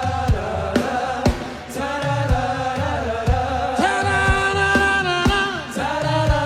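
Live gospel worship music: voices singing sustained notes over a band with a steady drum beat, with a long held note about four to five seconds in.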